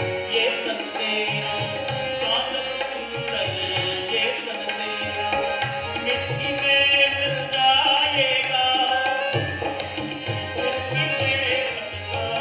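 Live Indian-style music: tabla keeping a steady rhythm under harmonium and electronic keyboard, with a voice singing a gliding melody.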